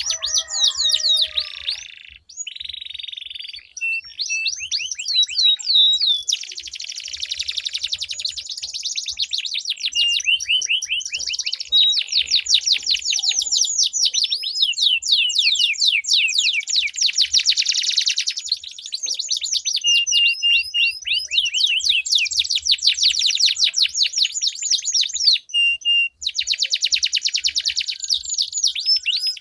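Domestic canaries singing long rolling trills: fast runs of repeated high notes, one phrase running straight into the next, with brief breaks about two seconds in and near the end.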